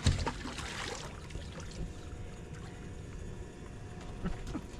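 Boat on the lake: a steady low rumble with faint steady tones, opened by a thump and a short rush of noise in the first second.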